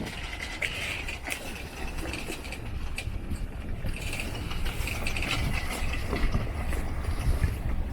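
Irregular clicking and ratcheting of sailboat deck hardware as lines are handled, over the low steady drone of the catamaran's engine running at cruising RPM.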